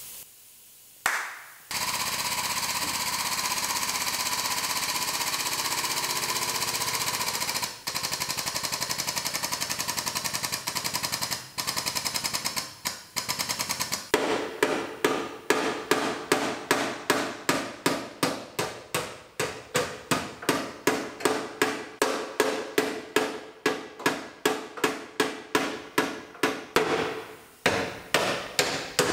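Rapid, steady mechanical chatter from the frame rack's air-driven hydraulic pump as the chain pull on the bent frame rail is tightened. About halfway through it gives way to a hammer striking the steel frame rail with a ringing clang about twice a second. The blows relieve stress in the rail while it is held under pull.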